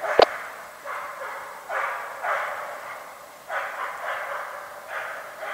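Hunting dog, a Weimaraner, barking repeatedly: about seven rough barks, irregularly spaced, each trailing off. A sharp click just after the start is the loudest sound.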